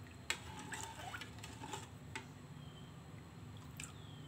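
Metal spoon stirring bael sharbat in a bowl: faint liquid swishing with a few light clicks and taps of the spoon against the bowl, most of them in the first two seconds and one more near the end.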